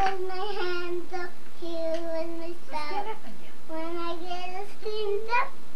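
A young child singing a song, drawing out long notes.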